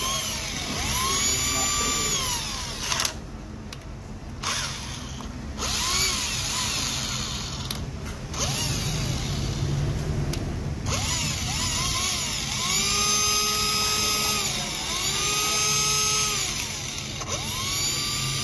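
Small cordless hand drill's motor run in repeated trigger bursts on a homemade 4-cell battery pack: each time a whine rises as it spins up, holds steady and falls away as it coasts down, several times over, with longer runs in the second half.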